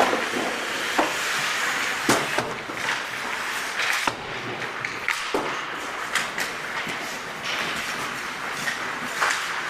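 Ice hockey play: skate blades scraping and hissing on the ice, with sharp clacks of sticks and puck striking again and again.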